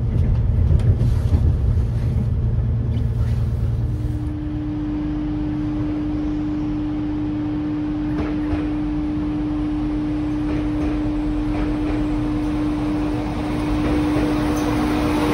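Low rumble of a moving train heard from on board for the first few seconds. Then a Transport for Wales Class 197 diesel multiple unit runs in along the platform, with a steady hum and wheel and rail noise that grow slightly louder as it draws alongside near the end.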